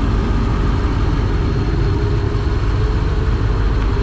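A car engine running at idle: a steady low rumble with a faint constant hum over it.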